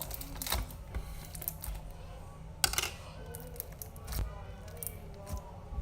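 Scattered clicks and crackles from a small plastic slime container being opened and clear foam slime being handled.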